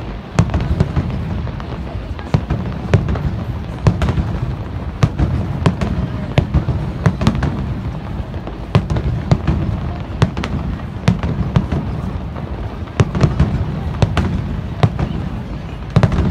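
Aerial firework shells bursting in quick succession: many sharp bangs and crackles, several a second, over a constant low rumble of overlapping booms.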